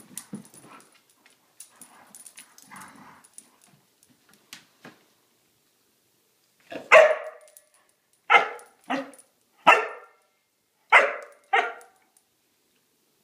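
Dog barking during tug-of-war play over a plush toy: six short, sharp play barks, the first about halfway through, after a few seconds of faint clicks and scuffling.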